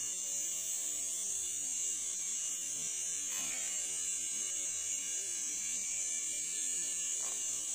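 Steady, high-pitched buzzing drone of insects in roadside vegetation, holding an even level.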